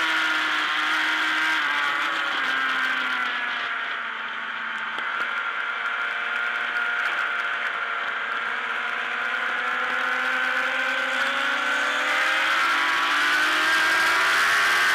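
Racing motorcycle engine heard from its own onboard camera. The engine note drops in the first few seconds, holds fairly steady at lower revs through the middle, then climbs again over the last few seconds.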